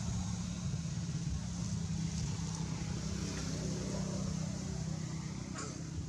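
Steady low engine drone with a constant hiss over it, and a faint click near the end.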